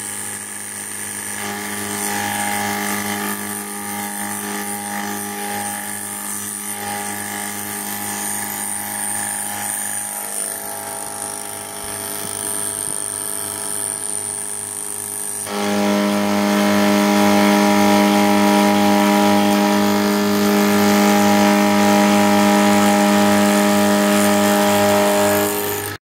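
Milling machine spindle driving a homemade two-insert carbide cutter through cold-rolled steel: a steady machine whine with cutting noise under it. It gets markedly louder about halfway through, with a low pulsing beat of about two or three a second, and stops abruptly near the end.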